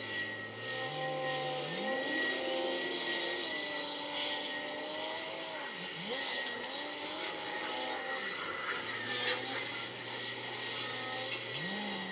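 Heavy diesel engine of construction machinery working a sand pile: it revs up from idle about two seconds in and holds, drops back about six seconds in, revs again, falls back to idle, and revs up once more near the end. A single sharp knock about nine seconds in.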